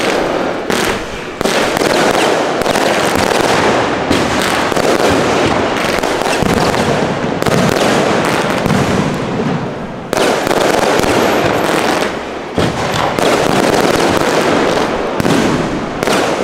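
Aerial fireworks show: a dense, continuous barrage of shell bursts and crackling, with brief lulls about ten and about twelve and a half seconds in.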